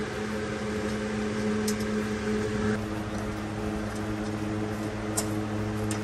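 A steady machine hum, with a few fixed low tones that shift slightly about halfway through, and a couple of faint light ticks.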